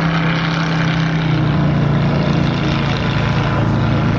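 Lobster boat's diesel engine running with a steady low drone; its note changes about a second in.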